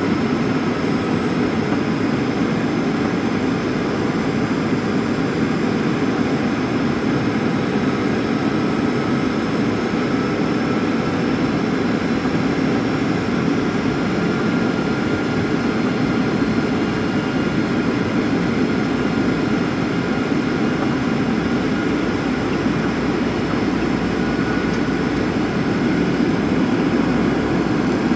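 Boeing 737 cabin noise in flight: a steady, even roar of jet engines and airflow with a few faint steady whining tones above it, unchanging throughout.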